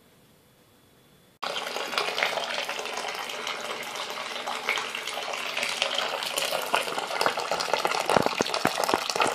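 Near silence, then about a second and a half in liquid starts pouring suddenly from a large pot through a straining cloth into a plastic fermenting bucket, a steady splashing gush. A few knocks come near the end.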